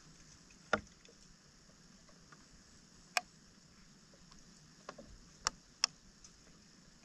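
Hands working in a flooded street storm drain: a handful of short, sharp splashes of water and debris, the loudest under a second in and twice around five and a half seconds, over a faint steady hiss.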